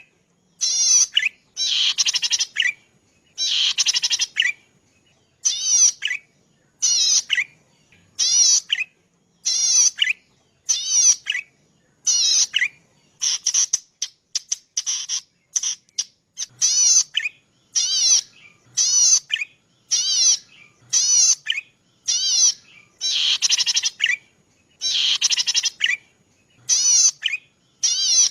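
A cici padi (prenjak padi), a small rice-field warbler, calling over and over in short, rapid buzzy trills. The trills come about once a second with brief pauses between them, some longer and louder than others.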